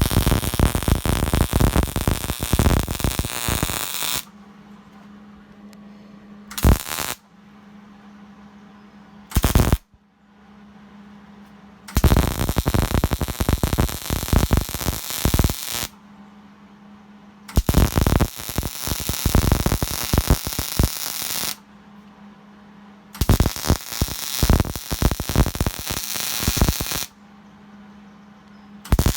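Electric arc welding: the arc crackles and sizzles in a run of welds, one about four seconds long at the start, two very short tacks around seven and nine seconds in, then three longer welds of about four seconds each. A steady low hum fills the pauses between them.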